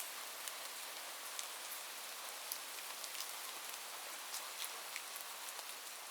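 Light rain falling steadily: an even hiss with many small drops ticking here and there.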